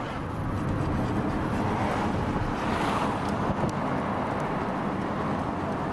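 Road and wind noise inside the cabin of a moving car: a steady rush of air over the microphone, swelling briefly about three seconds in.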